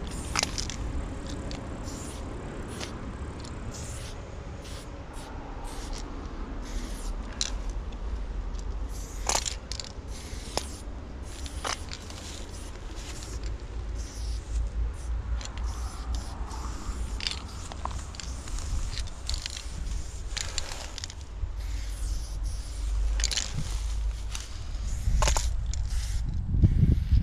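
Aerosol spray-paint can hissing in many short bursts, each a second or less, as lines are sprayed. A low rumble runs underneath and swells near the end.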